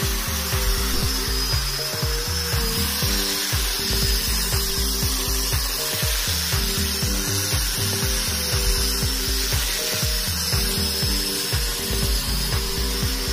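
Angle grinder in a wooden levelling base running steadily and shaving across a wooden slab: a high, slightly wavering motor whine over the rasp of the disc on the wood. Background music plays underneath.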